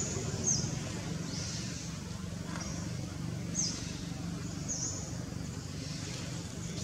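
Short, high, falling chirps repeated roughly once a second from a small animal, over a steady low hum.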